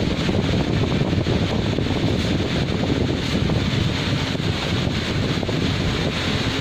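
Steady rumbling wind noise on the microphone, with road traffic noise mixed in.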